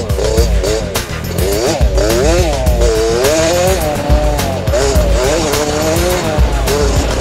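KTM 65 SX's small two-stroke motocross engine revving hard, its pitch rising and falling over and over as the rider accelerates, shifts and backs off along a rough track, heard on board.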